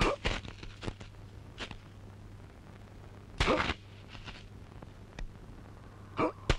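Hoe chopping into hard, dry soil: a series of dull strikes, with a louder, longer stroke about three and a half seconds in. Short grunts of effort come from the digger between strokes.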